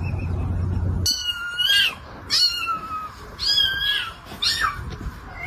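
A cat meowing: four high-pitched meows about a second apart, starting about a second in, with another beginning right at the end. A low rumble fills the first second.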